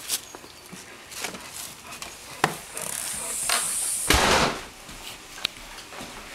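A door being pushed open and swung shut: scattered knocks and clicks, a hiss lasting about a second, then a loud bang as it shuts about four seconds in.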